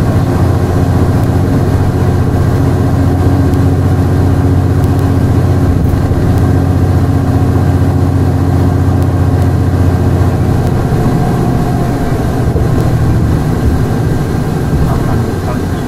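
Diesel engine of a non-step city bus running at a steady speed with a low drone. About eleven seconds in, the engine note drops and changes, and the sound eases off a little near the end.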